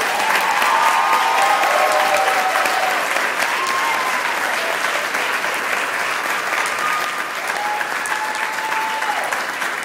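Audience applauding loudly right after a runner-up's name is called, with a few voices whooping over the clapping.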